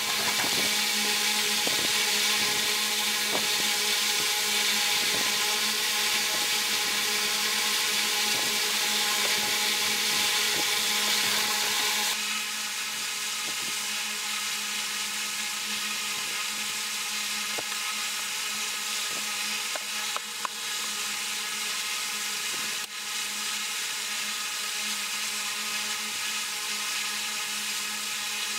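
Steady electric machine whir with several held tones, suddenly quieter about twelve seconds in, with faint small clicks over it.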